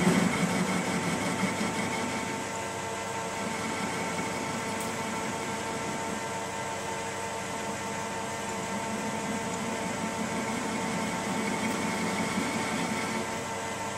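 Metal lathe running with the chuck spinning while a tool faces off the end of a round bar: a steady whine of motor and gearing, several steady tones over a hiss. It is a little louder in the first second or two.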